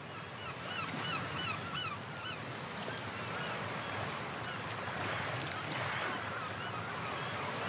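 Outdoor ambience fading in: a steady rushing wash of noise with a run of short, repeated bird calls in the first two seconds.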